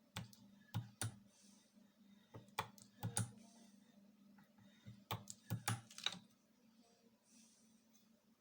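Homemade battery spot welder firing, giving about ten sharp snaps in three quick clusters as nickel strip is welded to the battery contacts, over a steady low hum.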